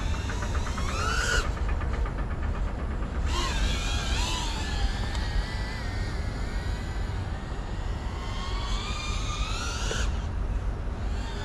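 FPV quadcopter's brushless motors whining in the air, the pitch rising and falling again and again as the throttle changes, over a steady low rumble.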